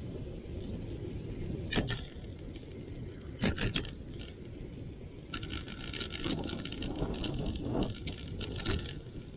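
Riding a bicycle on a paved street: a steady low rumble of wind on the microphone and tyres on asphalt, with a sharp knock about two seconds in and a quick cluster of knocks a little later as the bike jolts over bumps. In the second half comes a few seconds of rapid ticking.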